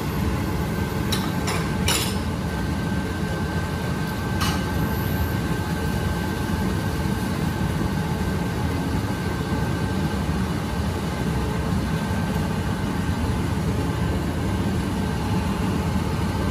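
Cooking in a wok on the stove: a steady low rumble, with sharp clinks of the metal spatula against the wok, three within the first two seconds and one more about four and a half seconds in.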